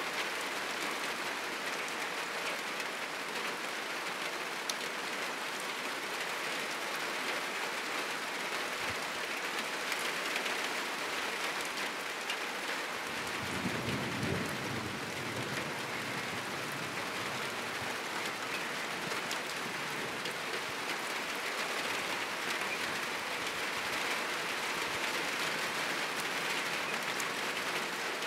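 Heavy rain falling steadily on a roof and the surrounding trees, with a low rumble of distant thunder about halfway through that lasts a couple of seconds.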